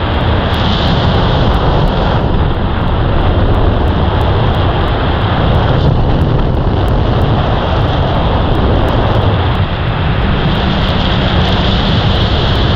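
Loud, steady rush of freefall wind battering the microphone during a tandem skydive.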